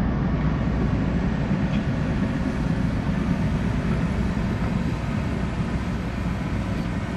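Excavator running with a steady low rumble.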